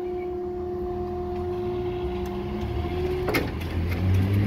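Level crossing barrier machine raising the boom: a steady motor hum that stops about three seconds in with a clunk as the barrier reaches upright. Road vehicle engines rumble near the end.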